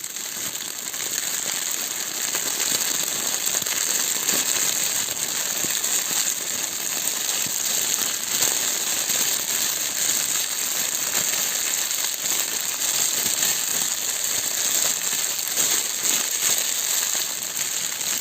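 Thin foil gift-wrap plastic pressed and crinkled in the hands without pause, making a dense, steady crackle as an imitation of falling rain.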